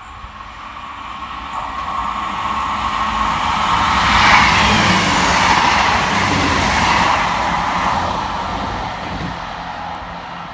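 Two coupled Class 158 diesel multiple units passing at speed without stopping. The rush of the train builds, is loudest a few seconds in, and fades away near the end.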